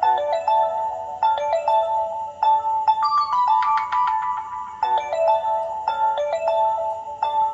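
An LG Classic Flip phone playing one of its built-in ringtones: an electronic tune of short, chime-like notes that repeats its phrase.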